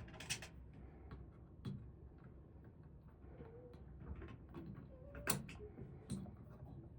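Faint scattered clicks and taps of an Allen key working the set screw on a shower valve handle, the clearest about five seconds in.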